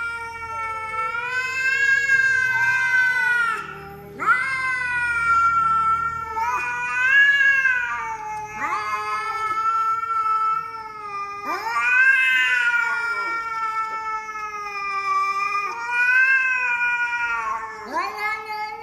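Domestic cats caterwauling at each other face to face: a series of long, wavering yowls, each drawn out for a few seconds with brief breaks. It is the threat yowling of a territorial standoff between two cats.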